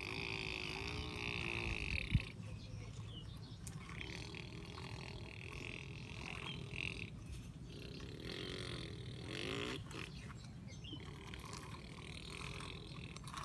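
A child's voice making rumbling, engine-like mouth noises that waver in pitch, at the start and again in the second half, while pushing a toy tractor through sandy dirt; a sharp knock about two seconds in, and a steady high buzz in two stretches.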